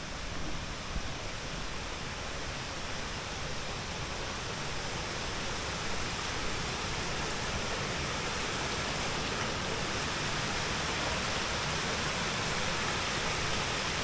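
Steady rushing of water from the Kuang Si waterfall's small cascades, growing slightly louder as they come nearer.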